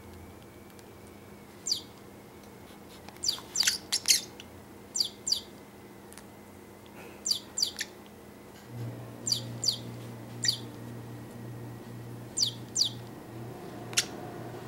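Pacific parrotlet chirping: short, high chirps, mostly in quick pairs, repeated every second or two.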